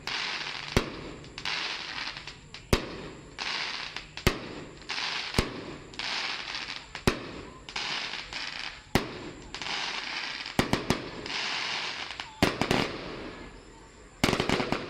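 Aerial firework shells bursting one after another, roughly once a second, each sharp bang followed by about a second of hissing crackle. Near the end the bangs come in quick clusters.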